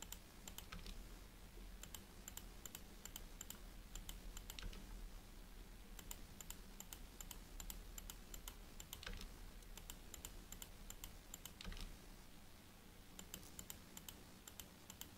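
Faint, irregular clicks of a computer mouse placing the points of a polyline drawing one after another, several a second in short runs with pauses between.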